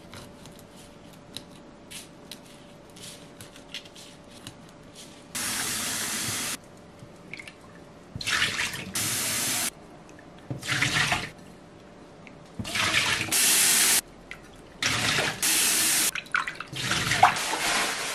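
Faint knife clicks as small sardines are headed and gutted. Then about six bursts of tap water running into a stainless steel bowl in the sink, each starting and stopping abruptly, with splashing as hands rub and rinse the fish.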